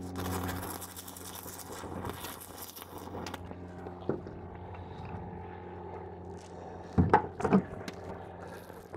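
Stick (arc) welding aluminium: the electrode's arc crackles and hisses for about three seconds, then stops as the rod burns down. A couple of brief louder sounds follow about seven seconds in.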